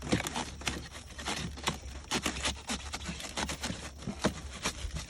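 Hand saw cutting through an ICF foam block in quick, irregular back-and-forth strokes, a rasping scrape with each pass.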